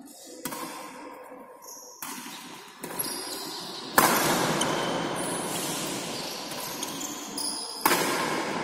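Badminton rackets striking a shuttlecock in a rally, sharp hits one to two seconds apart. About halfway through and again near the end a louder rush of noise starts with a hit and fades slowly.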